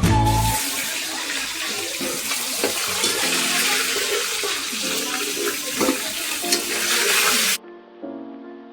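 Running water, a steady hiss that starts about half a second in and cuts off suddenly near the end, over background music.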